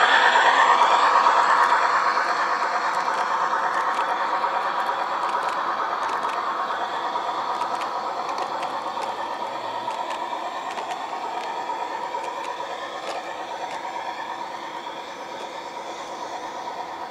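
Large-scale garden-railway model train, a steam locomotive with passenger coaches, running past on the track. The wheels rattle and click over the rail joints, and the sound fades steadily as the train moves away.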